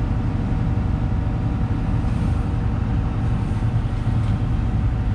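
Hitachi 350 long-reach excavator's diesel engine running steadily at idle, heard from inside the cab as a low, even rumble with a faint steady hum over it.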